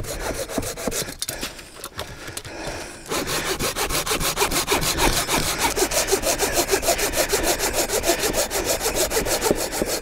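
Hand saw cutting through a dead birch branch, uneven strokes at first, then a fast, even back-and-forth rhythm from about three seconds in. The wood is storm-fallen deadwood that the sawyer takes to be dry.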